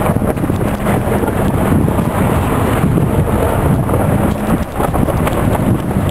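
Car driving over a rough gravel mountain track, heard from inside the cabin: a steady rumble of tyres on gravel with the engine running underneath and small crunches from the stones.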